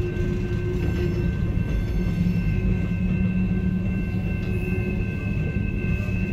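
Freight train of covered hopper cars rolling steadily past the crossing, heard from inside a car: a continuous low rumble from the wheels on the rails, with a steady high-pitched ringing tone over it.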